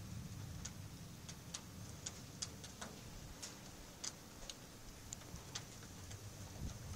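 Scattered raindrops ticking irregularly on a hard surface close to the microphone, over a steady low rumble.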